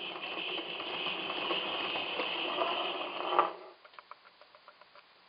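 Accucraft NGG16 Garratt model locomotive running on compressed air: its cylinders exhaust in a steady hiss for about three and a half seconds, which cuts off suddenly. Quick, light ticking follows, about five a second.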